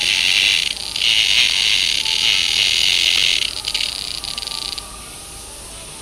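A cicada held in fingers gives a loud, steady, high-pitched buzzing call, its alarm call at being handled, with a short break just under a second in. It then falters into stuttering pulses and stops about five seconds in.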